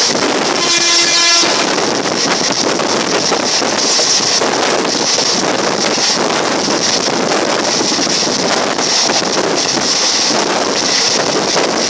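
Wind rushing over the microphone at the open window of a fast-running passenger train, over the steady running noise of the coach. A horn sounds briefly about half a second in.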